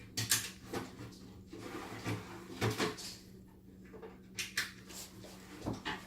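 Scattered clicks and knocks, about half a dozen, of the parts of a 1-800 bulk candy vending machine being handled as a canister is set on the base and its screws are fitted, over a faint steady hum.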